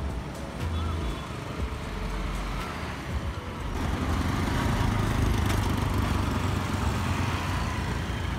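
Road traffic with small motor scooters and motorcycles passing close by, their engines louder from about four seconds in.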